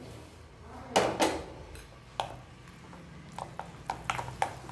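Utensil knocking and clinking against a mixing bowl while beating an egg and carrot batter: a few separate knocks, then quicker rhythmic taps in the last second or so.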